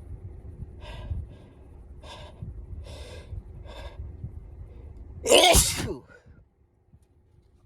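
A person's induced sneeze: four short catching breaths about a second apart, then one loud sneeze about five seconds in.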